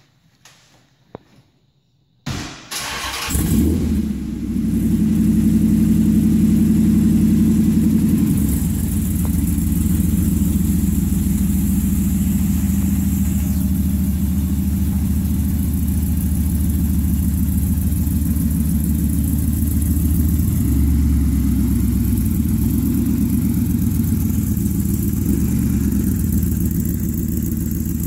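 The 1941 Willys street rod's engine cranks and catches a couple of seconds in. It then runs steadily with a loud, low-pitched exhaust note while the car moves slowly.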